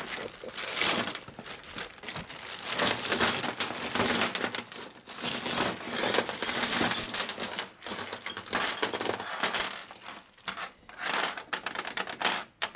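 A bag of steel bolts tipped out onto a steel workbench: a long run of clattering and jingling as the bolts slide and tumble onto the metal top, with the plastic bag rustling. Near the end, a few separate clinks as pieces are picked over.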